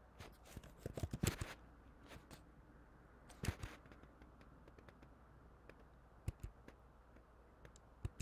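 Computer keyboard keys being tapped: a quick flurry of keystrokes in the first second and a half, then a few scattered single taps and pairs.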